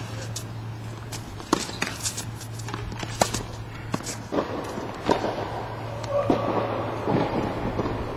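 Tennis ball struck back and forth in a rally: sharp racquet hits every second or two, with scuffling footsteps on the court.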